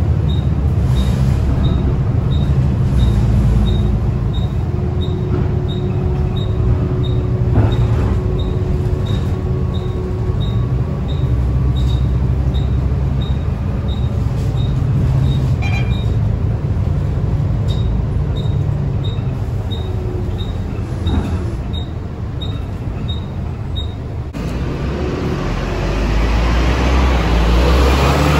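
Volvo B9TL double-decker bus's diesel engine and drivetrain running as the bus drives, heard from inside the lower deck, with a light ticking about twice a second. Near the end it is heard from the kerb instead, growing louder as the bus pulls away.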